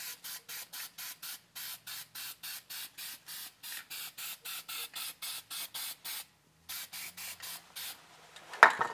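Aerosol spray paint can hissing in quick, even short bursts, about four a second, with a brief pause about six seconds in. A short louder sound comes near the end.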